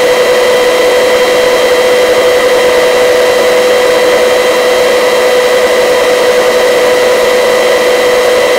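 Helicopter in flight, heard from inside the cabin: a loud, steady engine and rotor drone with a constant whine over it.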